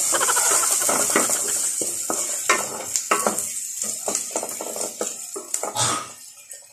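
Sliced garlic sizzling as it sautés in hot oil in a metal pot, with a wooden spoon stirring and scraping against the pot in quick, irregular strokes. The sizzle and stirring die down near the end.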